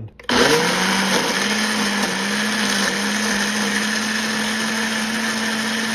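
Ninja blender motor starting, spinning up within a moment and then running at a steady speed, puréeing softened dried chilies, spices and liquid into a smooth marinade.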